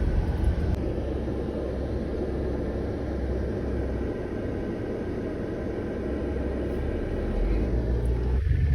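Road and engine noise inside a moving car: a steady low rumble, a little heavier near the end.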